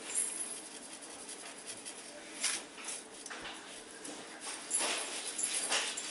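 Glass jar of coarse steak seasoning shaken by hand, the granules rattling in a few short bursts.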